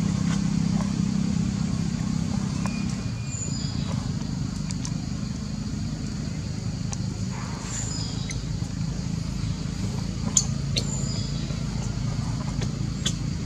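Steady low engine-like hum, like a motor vehicle running nearby, with a few faint brief high chirps and a couple of sharp clicks near the end.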